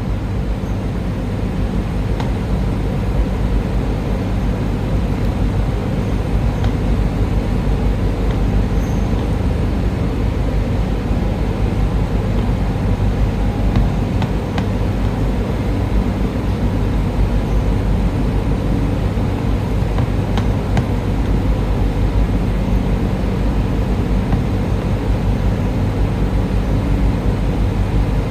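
Daikin air-conditioning unit running with a steady low hum and rumble.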